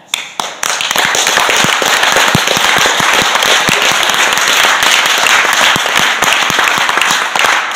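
Audience applauding: loud, dense clapping that breaks out at once.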